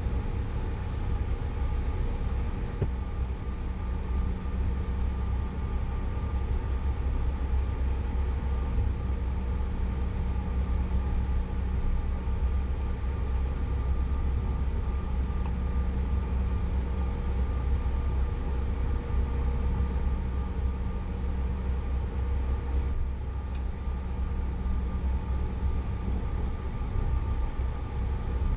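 Steady in-flight cabin noise of a Bombardier CRJ900 jet: a deep rumble of airflow and rear-mounted turbofan engines, with several steady engine hums running through it.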